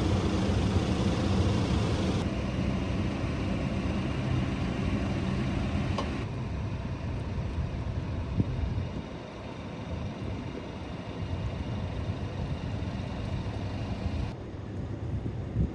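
Volvo excavator's diesel engine running steadily. The sound changes abruptly a few times, and there is a sharp click about six seconds in.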